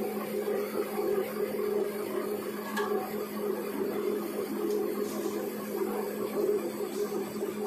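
Aluminum rod rewinding machine running: its single motor and gear drive make a steady hum with a continuous mechanical whirr as the rod winds onto the reel.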